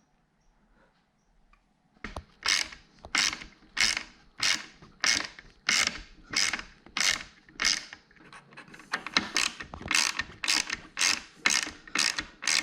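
Hand ratchet driving screws in: a run of repeated ratcheting strokes, about one and a half a second, quickening a little near the end, after about two seconds of near silence.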